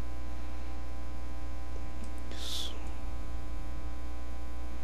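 Steady electrical mains hum with a stack of overtones, with a brief hiss about halfway through.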